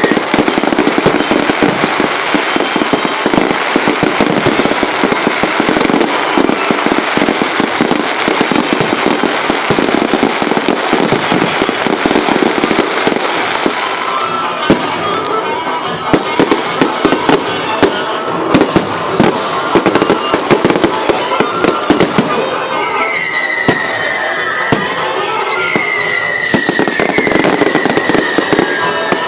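Fireworks going off in rapid, dense volleys of bangs and crackling, over loud show music, with a few short falling whistles near the end.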